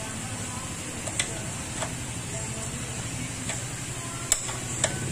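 Five sharp, irregular clicks and taps of motorcycle parts being handled and fitted, the loudest about four seconds in, over a steady low hum.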